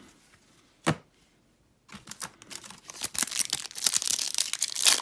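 A short click about a second in, then from about two seconds in the foil wrapper of an Upper Deck hockey card pack being crinkled and torn open, crackling louder toward the end.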